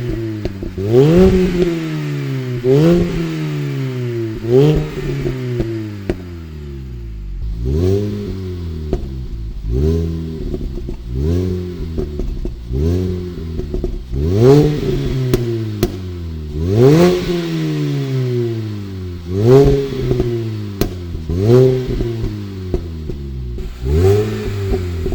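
Mini Cooper S R53's supercharged 1.6-litre four-cylinder revved through a resonated Scorpion stainless steel exhaust, blipped about eleven times at roughly two-second intervals. Each rev rises quickly and falls slowly back toward idle.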